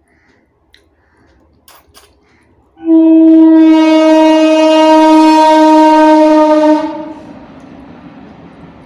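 A conch shell (shankha) blown in one long, loud, steady note of about four seconds, sliding up slightly as it starts and then fading out. A few faint clicks come before it.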